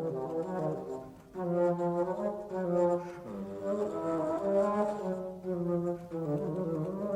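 Background music on brass instruments: held notes in several parts at once, with a brief break about a second in.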